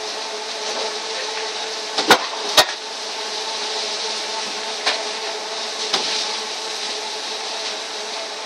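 Truck-loading belt conveyor running, its geared electric motor drive giving a steady hum with a high hiss. A few sharp knocks cut through it: two close together about two seconds in, and single ones near five and six seconds.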